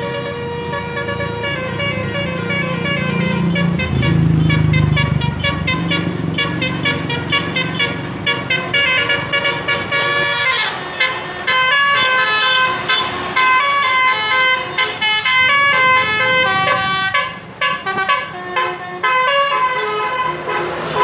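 An Indonesian bus's 'telolet' musical air horn playing a tune of short notes that jump between pitches, getting quicker and choppier after about ten seconds. A low rumble swells under it about four seconds in.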